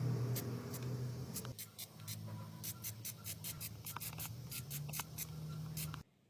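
Hand work in a workshop: light, irregular clicks and rubbing over a low steady hum, cut off abruptly near the end.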